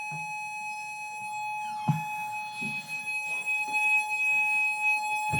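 Building fire alarm sounder going off with a loud, continuous, steady high tone. Two short knocks cut in, about two seconds in and near the end.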